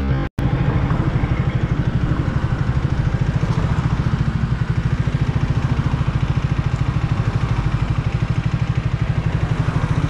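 Triumph Speed 400 single-cylinder engine running at low revs, an even, fast pulse that goes on steadily throughout.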